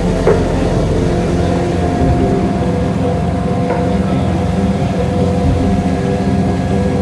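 Ferry boat engine running steadily under way, a continuous drone heard from on board.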